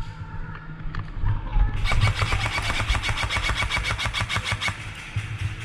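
Airsoft gun firing on full auto: a rapid, even string of shots starting about two seconds in and lasting about three seconds, over a low rumble.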